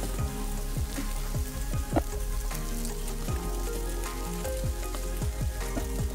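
A wooden spoon stirs and scrapes sooji halwa around a steel pan while the desi ghee sizzles softly, as the halwa is roasted until the ghee separates. There is a sharp knock of the spoon against the pan about two seconds in.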